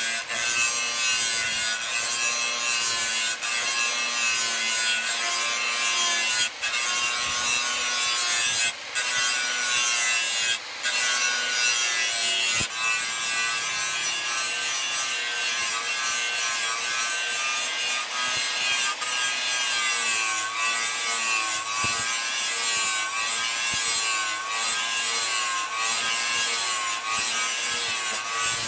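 Handheld angle grinder grinding a steel knife blade made from an old chainsaw: a continuous harsh grinding hiss over the motor's whine, which wavers in pitch as the load on the disc changes. A few short breaks come where the disc lifts off the steel.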